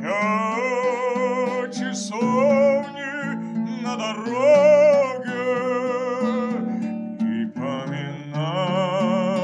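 A man singing a slow song with a wavering vibrato, accompanied by a kobza, a Ukrainian lute, plucked steadily underneath. The voice breaks off between phrases about two seconds in and again near the end.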